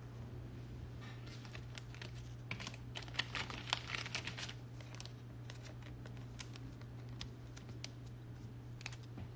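A quick, faint run of light clicks and taps, densest for a few seconds after about a second in, then a few scattered clicks, over a steady low electrical hum.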